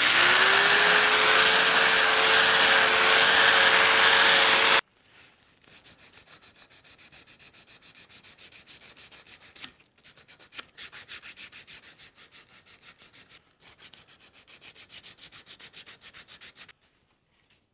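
An electric power tool spins up and runs loud and steady on the oak hammer handle for about five seconds, then cuts off. After that come quieter, rapid rhythmic strokes of hand sanding on the wood, with a few short pauses.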